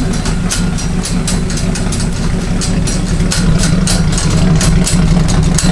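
1963 Ford F100 rat rod's engine idling through its upright exhaust stacks, a steady low running sound.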